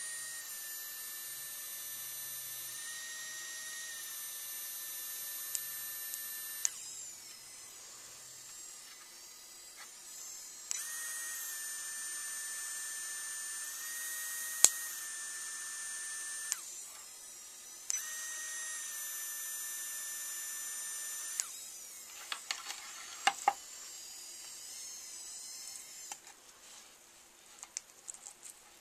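3Doodler 3D printing pen's filament drive motor whining in three long runs, each switching on and off abruptly, with a fainter whir in the gaps. A few small clicks and taps come near the end after the pen stops.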